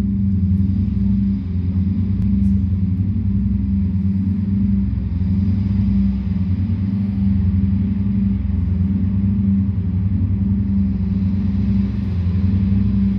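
Deep electronic drone with a low, throbbing pulse that keeps going at a steady level, from a live electronic music performance.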